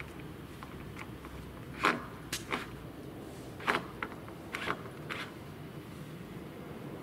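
Several short knocks and taps, about half a dozen between about two and five seconds in, from wooden posts being handled and steadied. They stand over a low, even outdoor background noise.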